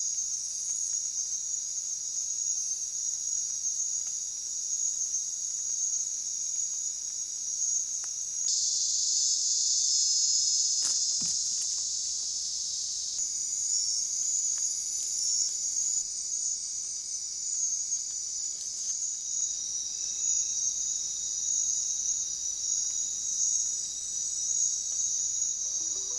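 Night-time insect chorus, a steady high-pitched trill of crickets and katydids. Its pitch and texture shift abruptly twice.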